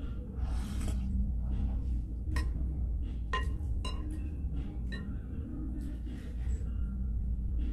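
A soup spoon clinking against a ceramic pho bowl, a few sharp ringing clinks between about two and five seconds in, after a short slurp of broth from the spoon near the start.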